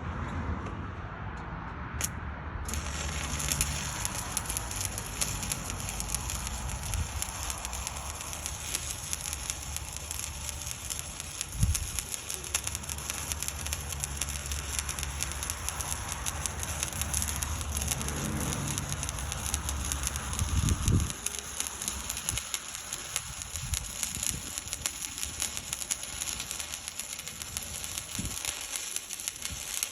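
Stick-welding arc from a 1/8-inch 7018 rod at about 124 amps, crackling and hissing steadily once it strikes up about three seconds in. A low hum runs underneath, with a couple of dull thumps around the middle.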